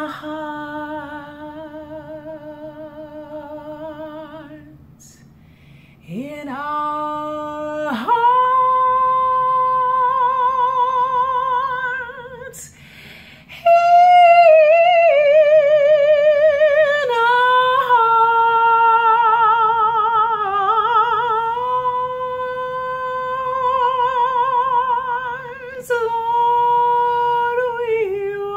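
A woman singing unaccompanied in a small room, holding long notes with heavy vibrato and sliding between pitches. She sings in a few long phrases with short breaks between them and no clear words.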